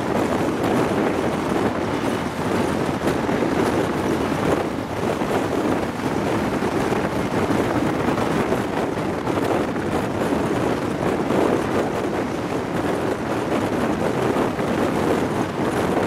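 Steady rushing wind buffeting the microphone held out of a High Speed Train's window at speed, over the constant running noise of the train on the rails.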